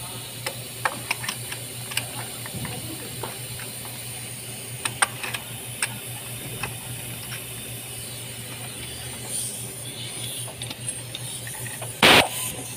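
Faint clicks and taps of a spark-plug socket on an extension bar, turned by hand to start a new spark plug's thread in a Mitsubishi Montero's cylinder head, over a steady hum and hiss. A loud, short clatter of tool handling comes near the end.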